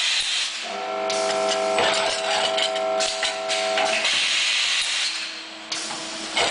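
Robotic nut-welding cell running, with bursts of hissing air. For about three seconds in the middle there is a steady hum of several held tones, which then gives way to hiss again.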